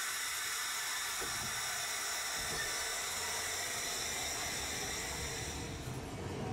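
Tosaden streetcar at the platform giving off a steady, even air hiss, then beginning a faint rising motor whine as it starts to pull away near the end.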